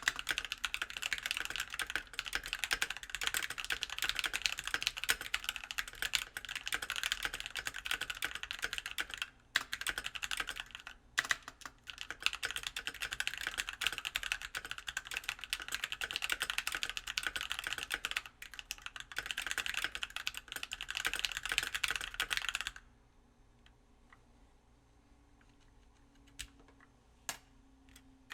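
NK65 Milkshake Edition mechanical keyboard with Silk Yellow switches on an aluminium plate, completely stock, being typed on quickly and continuously, a dense run of key clicks broken by a few short pauses. The typing stops about 23 seconds in, leaving only a few single keystrokes. The owner finds spring ping in the stock, factory-lubed switches loud and prevalent.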